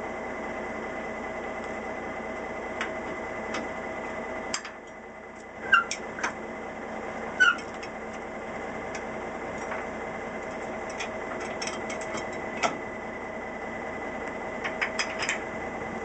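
Western Star dump truck's diesel engine idling steadily, briefly dipping about four and a half seconds in. Two short, high squeaks, the loudest sounds, come about six and seven and a half seconds in, and a few light clicks follow near the end.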